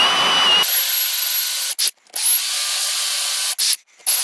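Cordless drill spinning a hole saw through a thin wooden board. The motor whine rises as it speeds up at the start, then the saw cuts in three runs, stopping briefly about two seconds in and again near the end.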